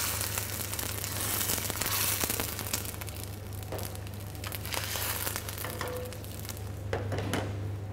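Water sizzling and crackling as it hits hot oil and grated lemon zest in a stainless steel pan. The sizzle is loudest in the first two seconds or so, then settles into a softer, steady crackle.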